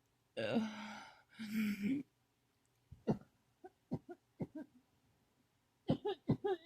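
A person in a coughing fit: two longer, noisy coughs in the first two seconds, then scattered short, sharp coughs, and a quick run of several coughs near the end.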